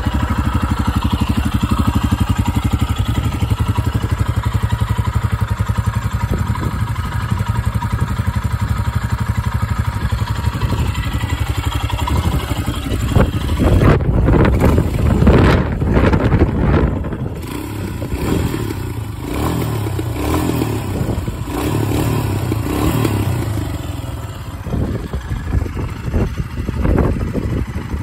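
Royal Enfield Himalayan's 411 cc air-cooled single-cylinder engine idling with an even, low thump. The throttle is blipped several times from about halfway through, with a few smaller blips near the end, and the engine settles back to idle between them.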